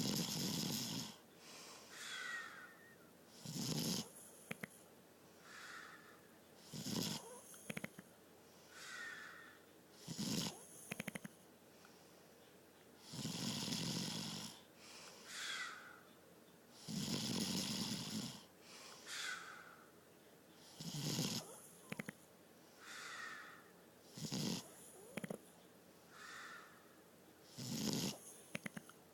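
A sleeping person snoring. Each breath brings a loud rasping snore followed by a short, high squeaky whistle, and the cycle repeats about every three and a half seconds.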